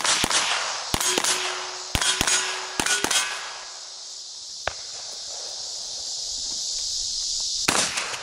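Rapid .22 LR pistol shots, mostly in quick pairs, about nine in the first five seconds. Steel targets ring with a short metallic clang after hits. Two more shots come near the end, over a steady high chirring of insects.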